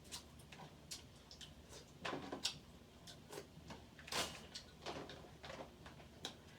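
Crab leg shells being cracked and broken apart by hand: irregular sharp cracks and snaps, with a few louder crunches about two seconds in and again around four seconds.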